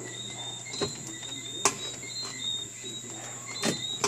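High intermittent chirping like crickets over a steady low electrical hum and a thin high whine, with three sharp clicks.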